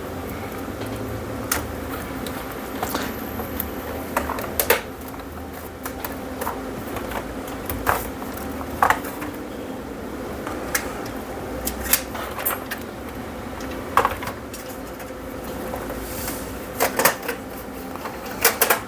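Irregular clicks and light knocks of plastic projector casing parts and small screws being handled and fitted during reassembly, over a steady hum.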